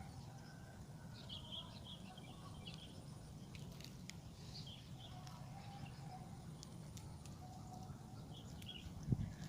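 Small birds chirping in short scattered bursts over a low steady rumble, with one short thump near the end.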